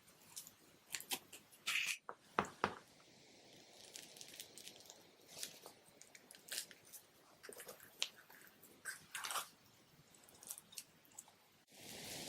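Slime being squished and poked by hand, with irregular sticky clicks and crackles. Near the end comes a brief louder rush of noise that cuts off suddenly.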